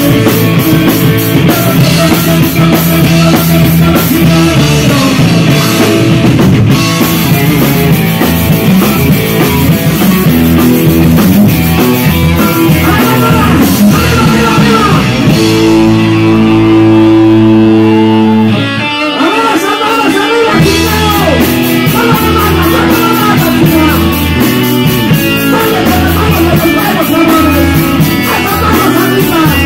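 Live rock band playing loud, electric guitar over a drum kit. About halfway through the band holds a long chord, breaks off briefly, and comes back in with a moving guitar line.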